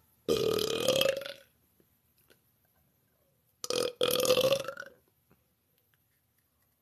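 A woman belching twice: two long, loud burps about three seconds apart, each lasting roughly a second.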